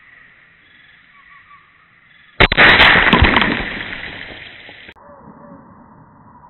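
A single .22LR rifle shot from a Savage rifle, very loud and sudden about two and a half seconds in, followed by a rushing noise that fades over about two seconds and then cuts off abruptly.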